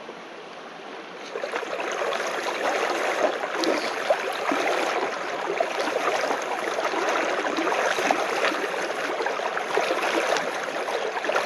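A small forest brook, Big Brook, running and babbling over stones in a steady rush of water; fainter at first, then louder from about a second in.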